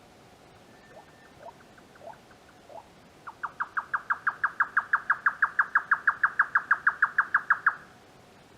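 Grey nightjar singing its rapid 'kyo-kyo-kyo' chopping song, about six sharp notes a second, kept up for over four seconds and then stopped abruptly. Four faint short notes come before the song.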